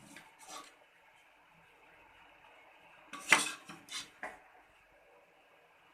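A spoon knocking and scraping against a cooking pot while rice is gently mixed: two soft knocks near the start, then a louder cluster of four clinks a little past halfway.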